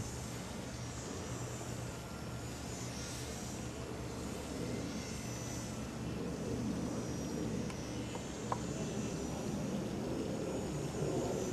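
Faint high-pitched whine of a micro radio-control model plane's tiny electric motor and propeller, run directly off two solar cells, fading in and out as the plane flies about, over a steady low outdoor rumble. A single click comes about two-thirds of the way through.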